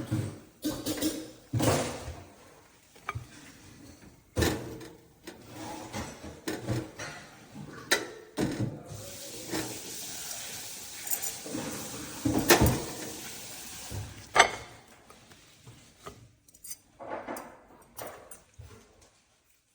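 Kitchen clatter: dishes, pans and utensils knocked and set down in a string of sharp clinks and thuds. A steady hiss runs for about five seconds in the middle.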